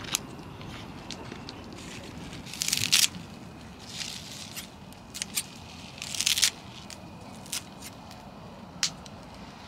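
Hands putting food into a steaming hot pot: several short bursts of crinkling plastic wrap on a foil tray and a few sharp light clicks, over a steady low hiss.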